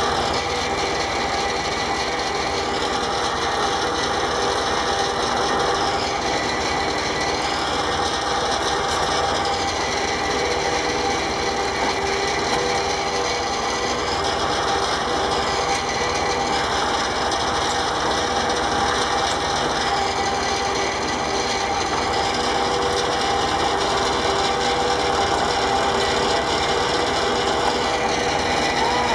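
Tractor belt-driven sawmill running steadily, its saw blade cutting through a log, with the tractor engine running underneath.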